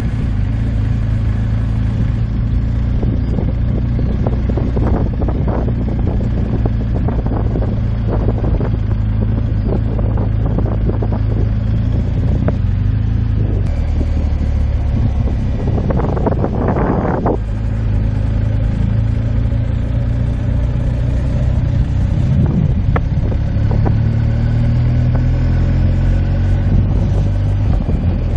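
Motorcycle engine running steadily under way, with wind buffeting the microphone. A brief louder noise comes about sixteen seconds in.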